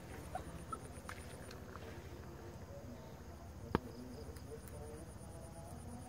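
An insect's high, rapid pulsing trill, in two stretches: the first stops about a second and a half in, and the second starts again past the midpoint. A single sharp click just before four seconds in is the loudest sound.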